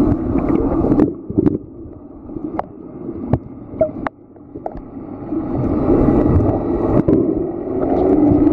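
Underwater sound heard through a camera's waterproof housing: a rumbling wash of water stirred by snorkelers' kicking fins, with scattered sharp clicks. It dips in the middle and swells again, and a steady motor hum comes in near the end.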